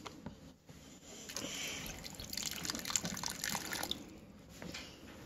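Liquid dripping and slopping with small wet clicks as a wet red crystal is handled and eased out of its plastic cup in a plastic tub of crystal-growing solution.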